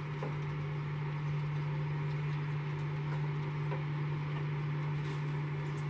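A steady low hum over a faint even hiss, unchanging throughout, with a few faint ticks.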